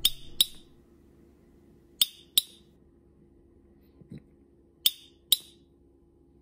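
Nagasaki poppen, a thin-bottomed glass toy, blown through its long glass tube: three pairs of sharp glassy clicks about two seconds apart, each pair the thin glass bottom flexing out and snapping back.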